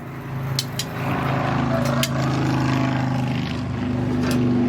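A motor running steadily with an even hum that grows louder about a second in, with a few light clicks over it.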